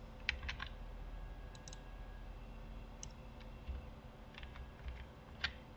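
Faint, scattered clicks of a computer mouse and keyboard: a few in quick succession near the start, then single clicks spread out.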